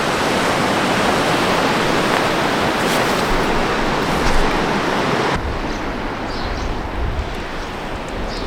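Sea surf washing below coastal cliffs, a steady rushing hiss. About five seconds in the sound changes abruptly to a duller wash with wind rumbling on the microphone.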